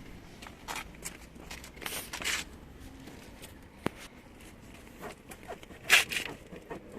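Kia ceed's lower seat cushion side trim being worked by hand against the plastic seat trim: scattered rubbing and creaking, a sharp click about four seconds in and a louder scrape near six seconds. This is the rub behind the seat squeak, now weaker because the owner has already been in there.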